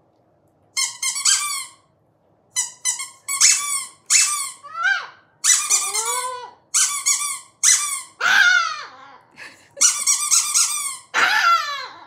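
A rubber fire-hydrant squeaky toy squeezed over and over in short squeaking bursts. A small Chihuahua answers it several times with high yaps that fall in pitch.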